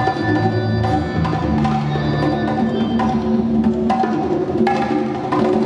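Music: percussion hits over a bass line of held low notes that change pitch every second or so.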